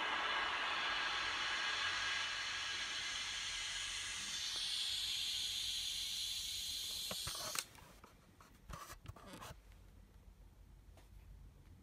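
Soundbar playing back a hissing, rushing noise-like track that cuts off suddenly about seven and a half seconds in, followed by a few sharp clicks.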